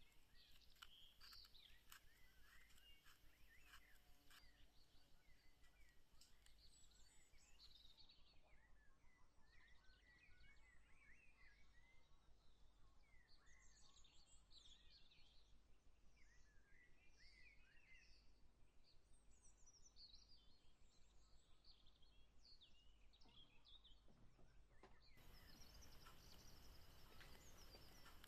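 Very faint birds chirping, many short rapid chirps through the whole stretch, with a few faint clicks in the first few seconds. A soft steady hiss comes in near the end.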